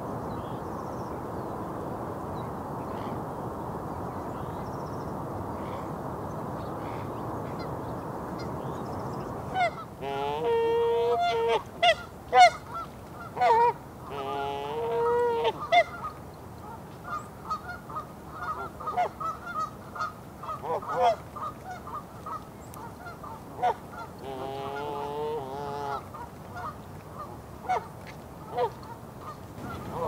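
Steady rumble of distant highway traffic, then, about ten seconds in, Canada geese honking in a long series of calls, some drawn out, with shorter quieter calls between.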